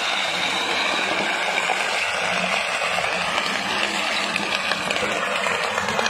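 Old three-wheel steel-drum road roller running as it rolls over rows of full glass liquor bottles, a steady noise with scattered small cracks of glass breaking under the drum.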